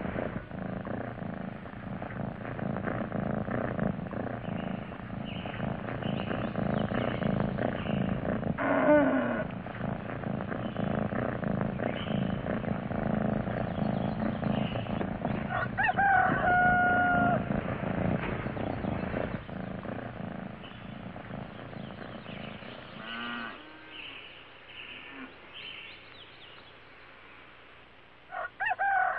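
Domestic cat purring steadily while nursing kittens; the purr fades away about twenty seconds in. Several drawn-out calls break in over it, one held for over a second about halfway through and another at the very end.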